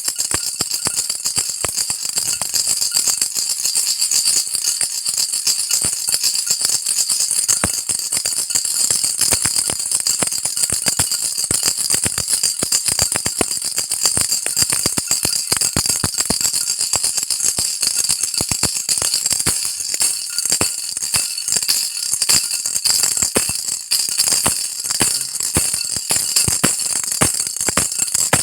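Baby rattle shaken continuously in a quick, unbroken stream of small bead clicks, with a bright, high jingling tone.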